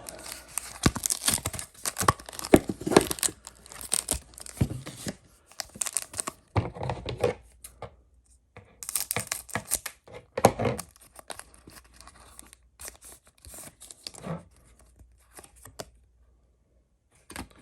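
Foil wrapper of a Pokémon booster pack being torn open and crinkled, densest in the first several seconds, with another burst of crinkling around the middle and sparser crackles and clicks after that.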